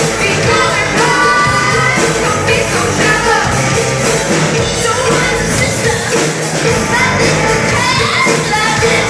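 Live amplified rock band: female vocals sung over drums, electric guitar and keyboard.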